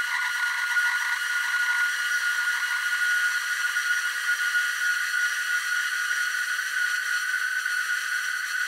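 Granular time-stretched texture from HourGlass: a recording of plastic on a wooden toy, replayed as about 39 overlapping fragments a second, smeared into a smooth, continuous whir with a steady high ring. The fragments are being lengthened, which smooths the sound further.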